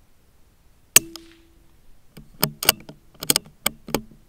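A single rifle shot about a second in, sharp and loud with a short ring after it, then a run of about eight quick clicks and knocks over the next two seconds.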